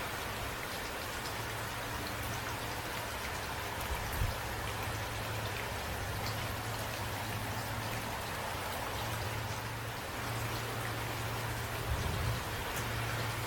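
Steady rainfall, with individual drops ticking on a surface, and a low steady rumble under it. Two brief low knocks come about 4 and 12 seconds in.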